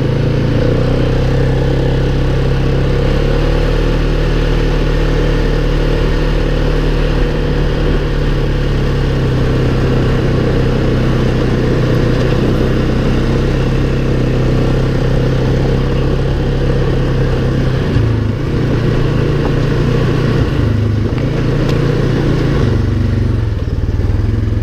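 Polaris ATV engine running while the quad is ridden, holding a steady note for much of the time and shifting pitch several times in the second half as the throttle is eased and opened again.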